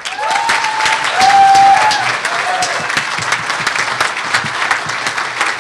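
Banquet audience applauding a speaker, steady dense clapping, with a few short whoops in the first couple of seconds.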